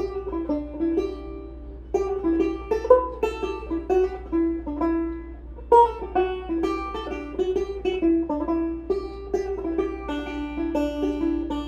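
Instrumental music: a melody picked note by note on a plucked string instrument, with no singing.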